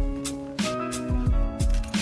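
Background music with a steady beat: kick drum, cymbal strokes and sustained pitched notes.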